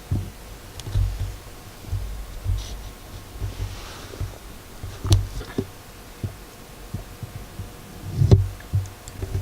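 Irregular low thumps with a couple of sharp clicks, about five and eight seconds in, over a faint steady hum.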